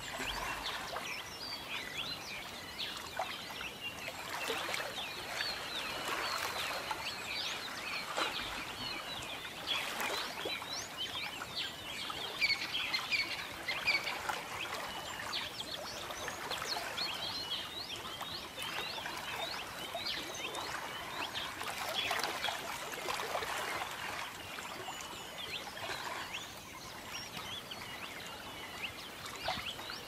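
Many small birds chirping and twittering at once, a dense chorus of short, quick calls over a faint steady hiss.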